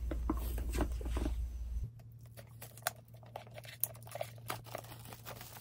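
Packaging of a boxed perfume being handled: faint scattered taps, rustles and crinkles of the box and its wrapping.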